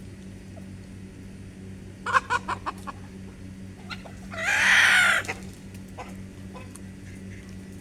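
Chickens clucking: a quick run of about five short clucks about two seconds in, then one loud, harsh call lasting about a second near the middle.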